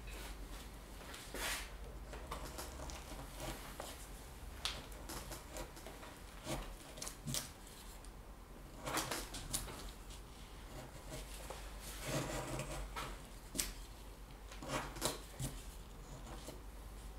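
Hand carving tool cutting and shaving wood in short, irregular strokes spaced a second or more apart.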